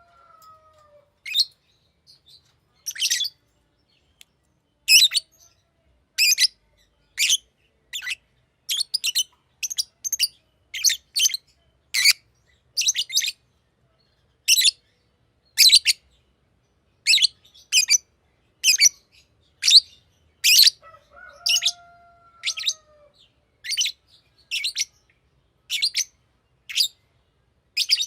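Green lovebird chirping: a long run of short, sharp, high chirps, about one or two a second with some in quick pairs. A lower, falling whistle-like note comes in about two-thirds of the way through.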